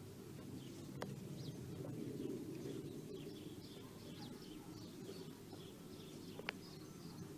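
Faint outdoor ambience: a steady low rumble with many small bird chirps scattered through it, and two soft clicks, one about a second in and one near the end.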